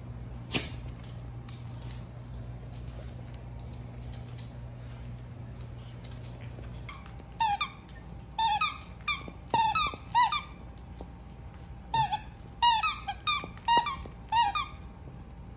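Squeaker inside a plush dog toy squeaking over and over as a chihuahua bites and chews it: about a dozen short, high squeaks in quick clusters over the second half. Before that, faint rustling and scratching of the dog pawing at a fabric dog bed.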